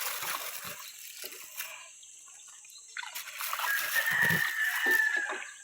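Water splashing and trickling for the first second or so, then a rooster crowing: one long, high call starting about three seconds in and sagging slightly at its end.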